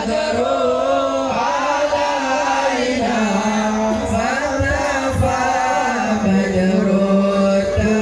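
Men chanting a drawn-out melody over a PA system, the voice holding long, wavering notes.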